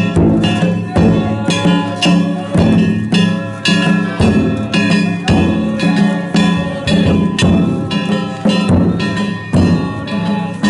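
Danjiri festival float's on-board percussion (narimono): a big taiko drum beaten in a steady rhythm with clanging metal gongs ringing over it, struck about once or twice a second.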